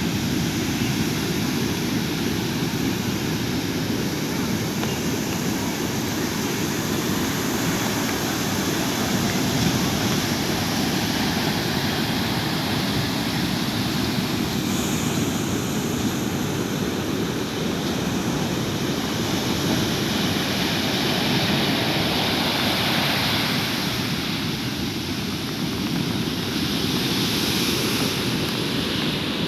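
Sea surf breaking and washing on a beach, a steady deep rushing noise that swells and eases slowly.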